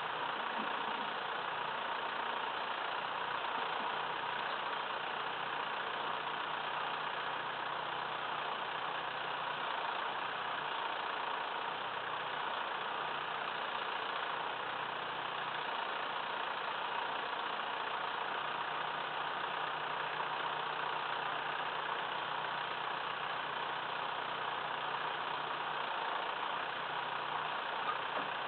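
Massey Ferguson 2635 tractor's diesel engine running at a steady speed, with no change in pitch or level.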